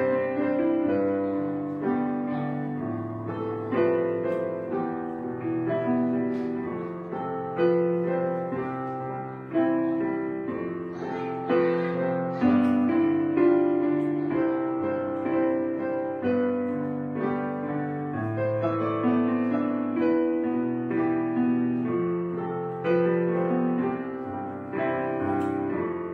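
Background piano music, with notes struck and left to fade.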